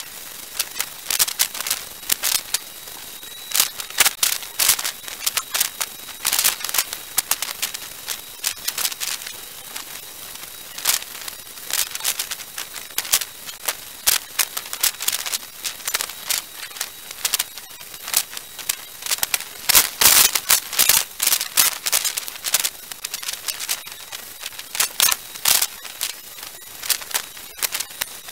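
Irregular crackling: many short clicks and pops over a steady hiss, thickest about twenty seconds in.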